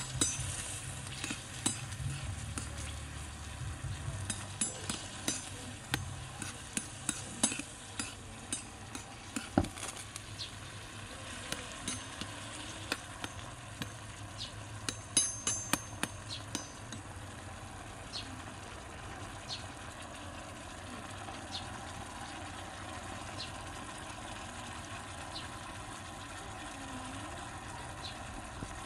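Chicken pieces and peppers frying in sauce in a miniature iron wok, sizzling steadily, while a small metal spoon stirs them with frequent clinks and scrapes against the pan. After about seventeen seconds the stirring stops and the sizzle carries on with only an occasional faint tick.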